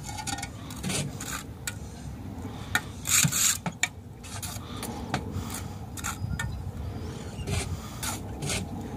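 Mason's trowel scraping mortar on concrete block in quick, irregular strokes, with a louder scrape about three seconds in.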